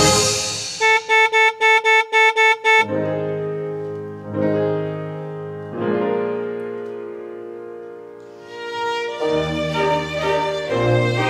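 Small theatre orchestra playing a silent-film score, with piano and strings. About seven short repeated staccato notes give way to soft, held chords over a bass line that slowly fade, and a livelier passage picks up about nine seconds in.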